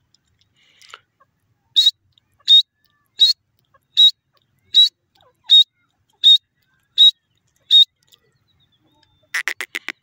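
Grey francolin calling: nine sharp, loud, high notes evenly spaced about three-quarters of a second apart. Near the end comes a fast rattling run of short, lower notes.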